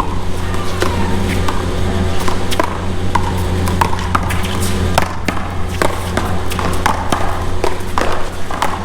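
A one-wall paddleball rally: a rubber paddleball smacked by paddles and knocking off the wall and the court in a run of sharp, irregular knocks, over a steady low rumble.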